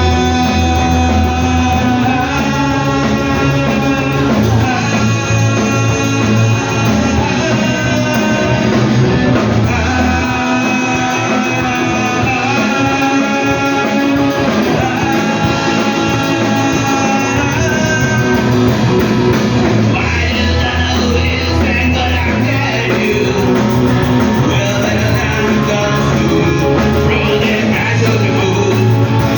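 Rock music: a song with a singing voice over guitars and a steady bass line.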